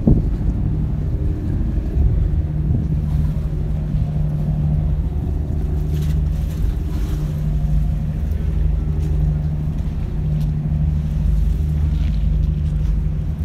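Boat engine droning low and steady.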